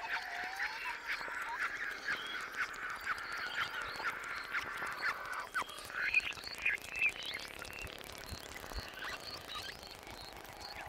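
A dense chorus of short animal calls and clicks, thinning out and growing quieter in the second half.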